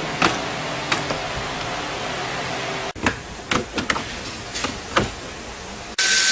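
Scattered clicks and knocks of plastic dashboard trim panels and screws being handled and pried loose. Near the end a power tool starts with a loud, steady whir and a high whine.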